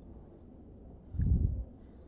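A brief low rumble on the camera microphone about a second in, lasting about half a second, over faint background.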